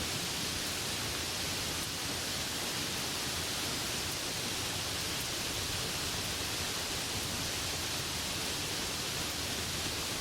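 Steady rain falling, an even hiss with no single drops or gaps standing out.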